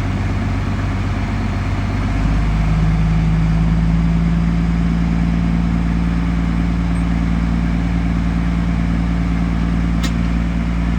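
Hyundai 215 excavator's diesel engine running steadily; about two seconds in, the engine speed steps up and it runs louder and higher-pitched. A short click comes near the end.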